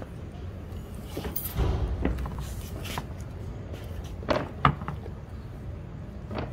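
Scattered knocks, bumps and scrapes of plates on a table and of eating, as two people eat peeled bananas face-down from plates without using their hands, over a low steady background rumble.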